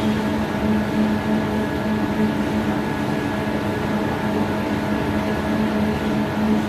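Steady hum of running industrial machinery, a constant low tone with higher overtones over a mechanical noise bed.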